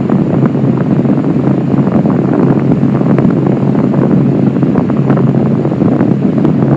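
Violent ground rumbling: a loud, continuous low rumble with a dense crackle running through it, not letting up.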